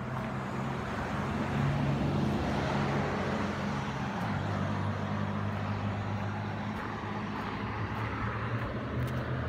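Road traffic noise from a car passing on the road, its tyre and engine sound swelling about two seconds in and easing off slowly, over a steady low hum.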